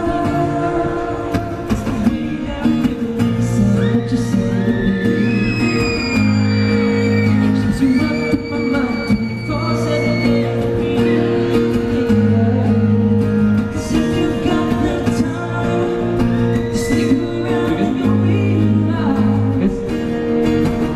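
Live pop band music with singing and guitar: held sung notes over a steady accompaniment.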